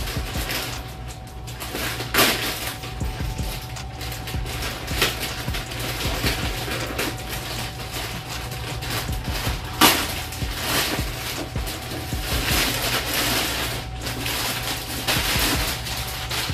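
Plastic poly mailer bag being torn open and handled, crinkling throughout, with sharp louder crackles about two seconds in and near ten seconds. Denser crinkling follows as the costume's plastic-wrapped package is pulled out, over a steady low hum.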